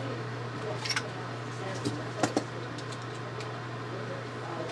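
A few light clicks and taps of small parts being handled, in pairs about a second in and a little past two seconds, over a steady low hum.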